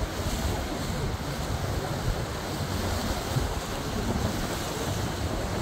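Wind buffeting the microphone: a steady rushing noise with a heavy, fluttering low rumble.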